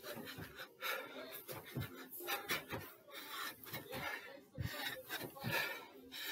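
A man panting and wheezing hard, out of breath from repeated box jumps, with a few dull thumps of feet on the stairs.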